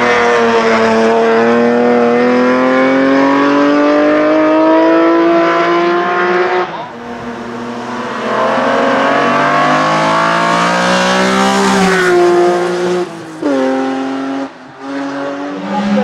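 Engine of a 3-litre BMW E30 HRT hillclimb race car at full throttle, its pitch rising steadily as it accelerates. The note breaks off about seven seconds in, climbs again, then cuts in and out in short stops near the end.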